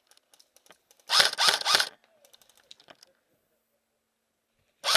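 Airsoft electric gun firing a rapid burst of under a second, about a second in, with a second burst starting near the end. Faint clicks come in between.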